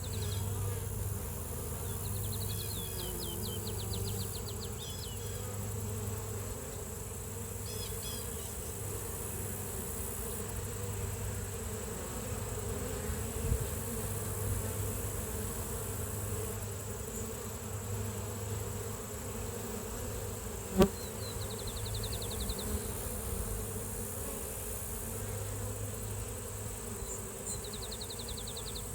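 Honeybees in flight, a steady buzzing hum, with songbirds giving short high trills several times. A single sharp click stands out about two-thirds of the way through.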